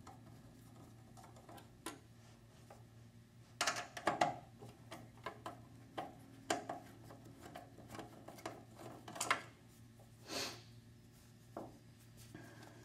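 Scattered clicks, knocks and scrapes of hands working on a mobile DVR's metal case as the lid is unscrewed and taken off, with a quick run of sharp clicks about four seconds in. A steady low hum runs underneath.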